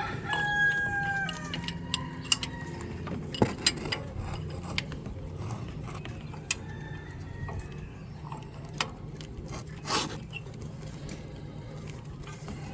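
A rooster's crow trailing off in the first second, then scattered clicks and metal clinks of hand tools working on the engine's belt tensioner and pulley, over a steady low hum.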